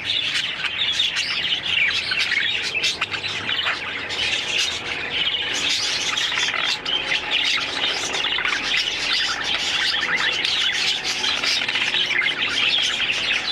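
Budgerigars chattering: a dense, continuous mix of warbles, chirps and short squawks.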